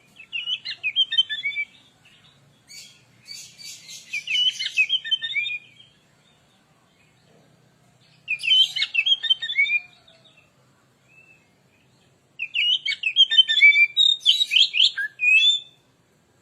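Oriental magpie-robin (kacer) singing: four bursts of rapid, varied whistled phrases with short pauses between them, some mixed with scratchy notes.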